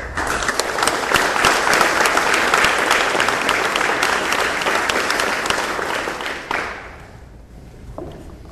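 Audience applauding: many hands clapping, starting abruptly and dying away about seven seconds in.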